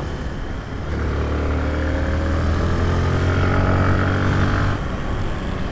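An engine droning at steady, slowly rising revs from about a second in, dropping away shortly before the end.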